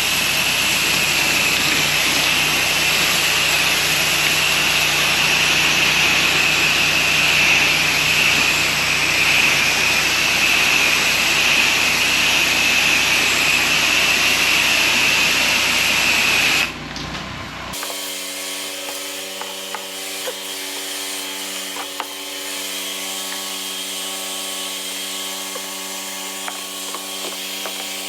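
Pressure washer spraying: a loud, steady hiss of water under pressure that cuts off abruptly about seventeen seconds in. After it comes a quieter, steady machine hum with light clicks.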